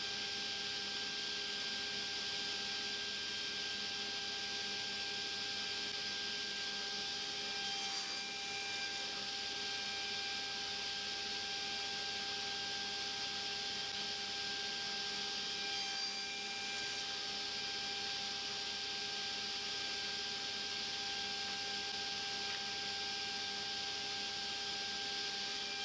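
Table saw running with a steady motor hum while small walnut pieces are cut on a crosscut sled, with two faint brief sounds about 8 and 16 seconds in.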